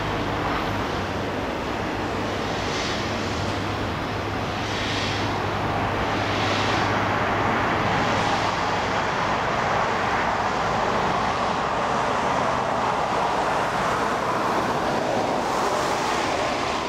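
Komatsu 210 excavator's diesel engine running with a steady low hum, under a broad rushing noise that grows louder about halfway through.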